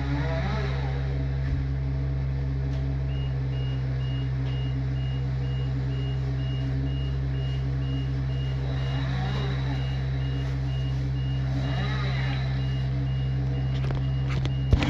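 Engine of a truck or heavy machine running steadily while its reversing alarm beeps in an even, high-pitched rhythm, starting about three seconds in. A couple of sharp knocks near the end.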